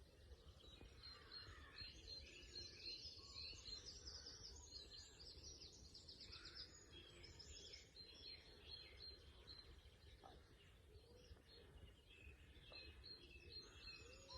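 Faint dawn chorus: several songbirds singing at once, with overlapping trills and a string of short repeated high notes, over a steady low rumble.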